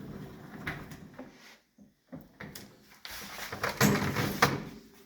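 Lower basket of an LG dishwasher being pulled out, its wheels running along the rails with rattles and knocks, loudest about four seconds in.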